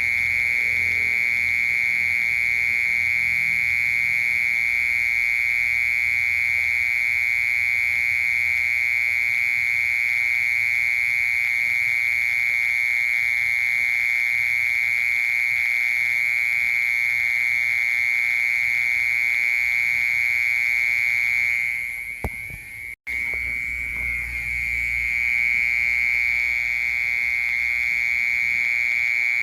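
Mole cricket calling: a loud, unbroken, high buzzing trill on one steady pitch. It falters and cuts out briefly with a click about three quarters of the way through, then resumes.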